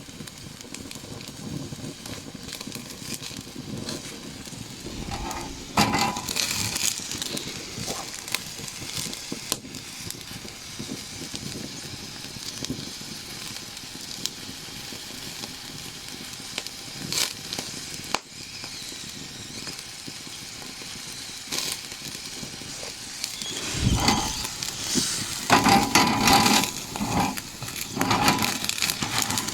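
Campfire crackling and popping, with food sizzling over it. Near the end, louder crunching handling noises come in.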